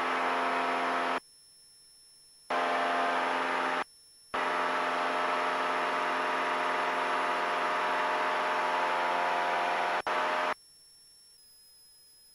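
Cabin drone of a Cessna 172's engine and propeller heard through the headset intercom, cutting in and out abruptly as the intercom's voice-activated squelch opens and closes. It drops out twice early on and cuts out for good about ten and a half seconds in, leaving only a faint hum.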